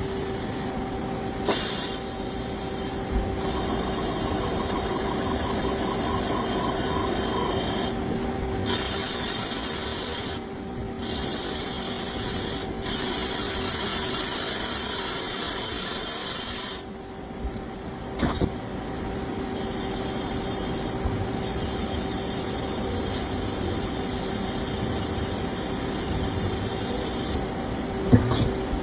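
CNC machine working aluminum: a steady machine hum with a constant tone, broken several times by loud hissing stretches lasting a few seconds each.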